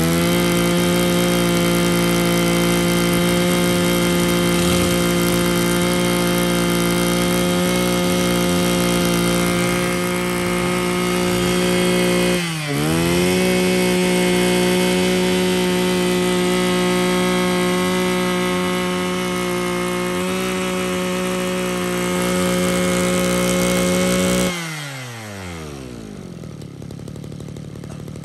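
Mitsubishi TL261 26cc two-stroke brush cutter engine running at high throttle with a steady high-pitched whine. About twelve seconds in, the throttle is let off for a moment and opened again. Near the end the throttle is released and the engine drops down to idle.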